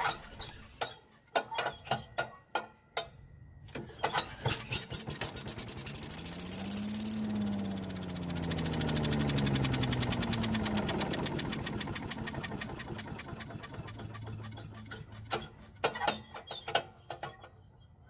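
Small single-cylinder engine of a Yard-Man leaf vacuum/mulcher, primed with starting fluid and pull-started: after a few clicks it catches about four seconds in, revs up, then slows and dies out near the end with a few last sputters. Starting on the fluid and then dying points to a carburetor or fuel problem.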